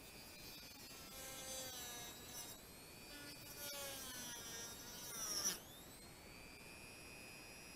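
Handheld rotary tool running at high speed with a steady whine, cutting a notch in plastic bumper trim. Its pitch shifts up and down while it cuts, with one sharp, loud peak about five and a half seconds in, and then it settles back to a steady whine.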